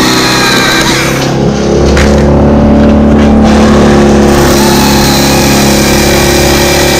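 Two-stroke top-handle chainsaw running, throttled up about a second and a half in and held at full revs as it cuts through a loblolly pine limb.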